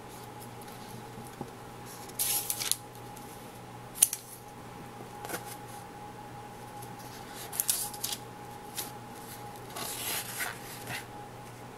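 Paper sheets rustling and crinkling in short bursts as they are handled and the pages turned, with one sharp snap about four seconds in. A faint steady hum runs underneath.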